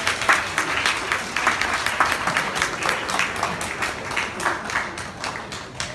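A roomful of people clapping, thinning out over the last couple of seconds.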